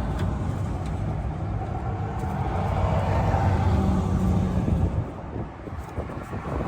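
A motor vehicle passing by: a low engine and tyre rumble that swells, peaks about four seconds in and fades away near the five-second mark.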